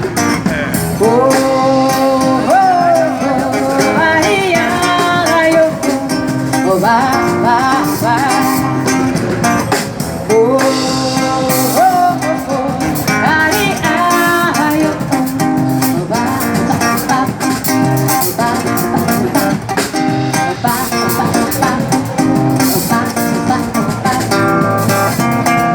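Live samba music: acoustic guitar strumming a steady rhythm while a woman's voice slides up and down in pitch without words.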